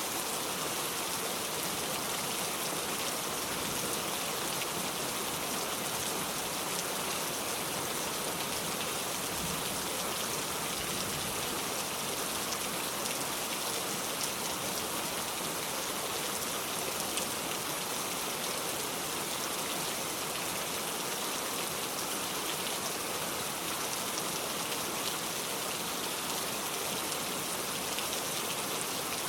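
Heavy rain falling steadily, a dense even hiss with scattered patter of drops.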